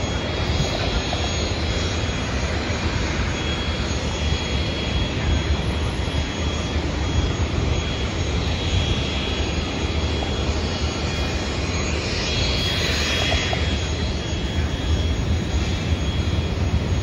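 Jet airliner engines running: a steady rumble with a thin, steady high whine, swelling briefly about twelve seconds in.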